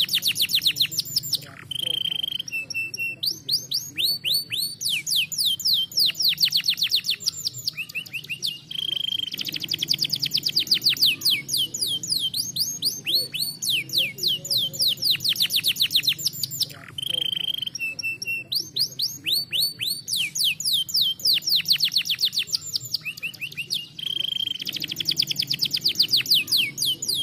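Domestic canary singing a fast, continuous song of rapid trills, each made of quickly repeated downward-sweeping notes. A short, steady whistled note breaks in about four times.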